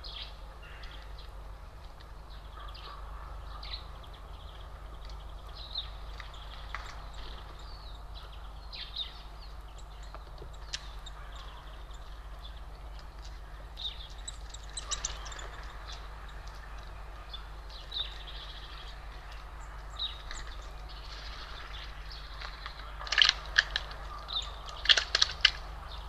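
Small songbirds chirping and calling in short, scattered notes, with a louder run of sharp calls near the end, over a steady low hum.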